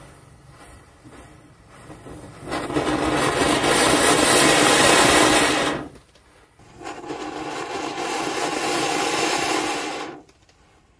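Diwali firecrackers going off along a burning matchstick chain: two loud, sustained hisses of spraying sparks, about three seconds each with a short break between, after a faint crackle of matchheads flaring.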